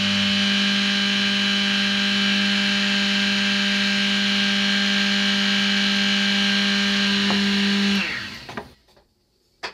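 Mini vertical milling machine's spindle motor running steadily with a strong hum, the end mill cutting an HDPE plastic block. About eight seconds in it is switched off and winds down quickly, followed by a single click near the end.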